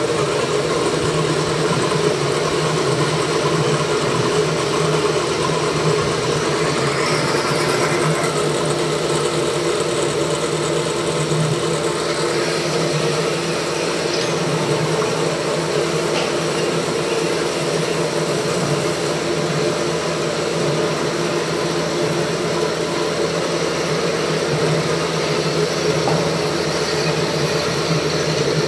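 Metalworking machine tools running steadily, a continuous mechanical hum that holds the same level throughout.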